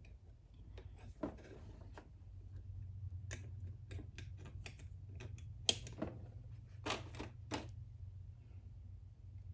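Light metallic clicks and taps from hands handling a piston on its connecting rod and fitting its spiral-lock wrist-pin retainers, one sharper click a little past halfway and a quick run of clicks near the end.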